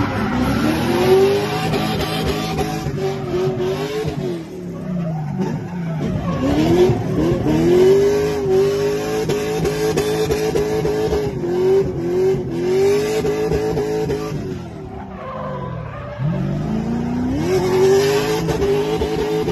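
A drift car's engine revving high and held there, its pitch wavering up and down, with tyres squealing as the car slides. The revs drop away about four seconds in and again about three-quarters of the way through, then climb back up.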